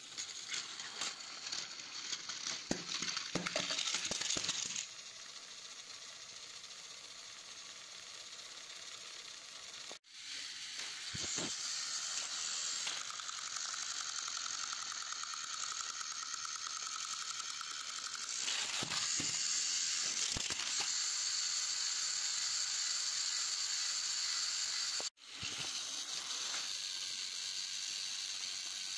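Battery-powered Plarail toy train engines running on plastic track, their small motors and gearboxes whirring with a steady hissing rattle and rapid clicking in the first few seconds. The sound cuts out briefly twice.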